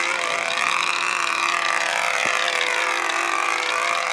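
Control-line stunt model airplane's small engine buzzing steadily while the plane circles on its lines. Its pitch rises and falls in long, slow waves as the plane swings toward and away from the listener.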